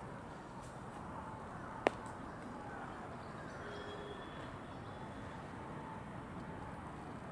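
Steady outdoor background noise with faint distant calls rising and falling, and one sharp click about two seconds in.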